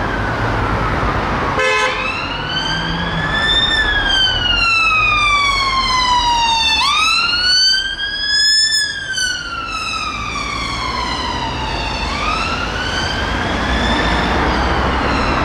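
Police Ford Kuga patrol car's siren on a slow wail, rising and falling about every five seconds, over the low hum of traffic. A brief buzzing blip sounds about two seconds in.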